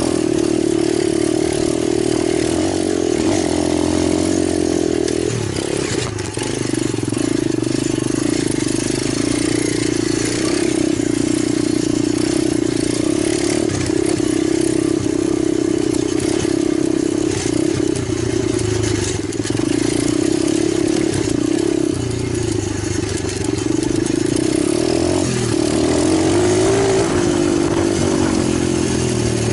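Italjet 125 cc pit bike engine running steadily, with a brief drop about six seconds in and a short rise and fall in pitch near the end.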